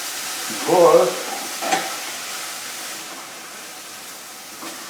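Blanched vegetables sizzling in butter with onions and garlic in a hot skillet, with a single knock about two seconds in; the sizzle grows quieter toward the end.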